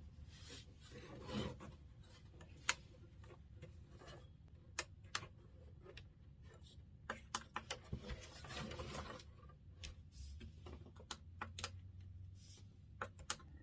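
Faint handling sounds from a plastic device: scattered small clicks and taps mixed with soft rubbing, with a quick run of clicks about seven seconds in.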